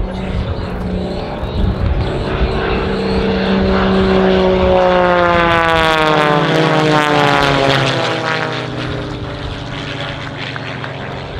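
Pitts aerobatic biplanes passing low overhead, their piston engines and propellers droning. The sound grows louder, then drops in pitch as they go by and fades toward the end.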